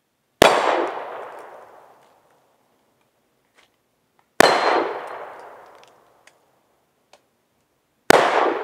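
Three revolver shots from a Pietta single-action revolver, about four seconds apart. Each is a sharp crack followed by an echo that dies away over a second or more.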